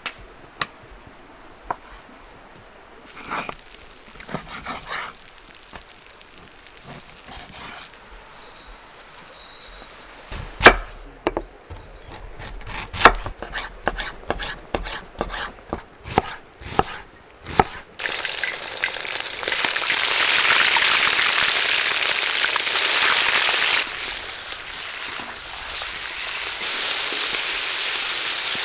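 A knife chopping carrots on a wooden board, about a dozen sharp separate strokes. Then, about two-thirds of the way in, sliced onions start frying in a cauldron with a steady loud sizzle as they are stirred. The sizzle eases off somewhat near the end.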